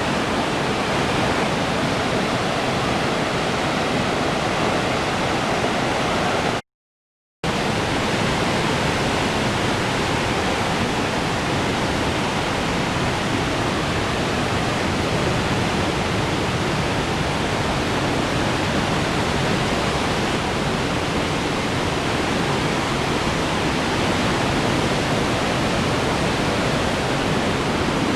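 Waterfall rushing in a steady, even roar of falling water, cut off to silence for under a second a little over six seconds in before it carries on unchanged.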